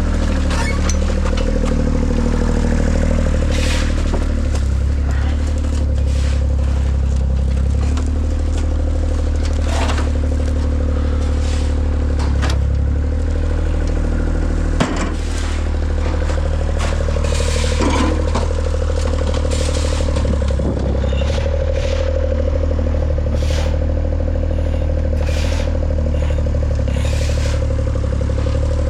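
A large engine running steadily throughout, with scattered clanks and scrapes on top and one sharp knock about halfway through.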